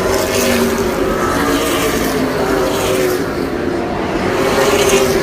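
Race car engines running at speed, their pitch rising and falling as the cars go around the track.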